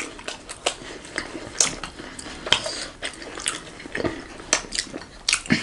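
Eating sounds close to the microphone: scattered light clicks and taps of food being torn and handled by hand over plates, with plate and cutlery clinks.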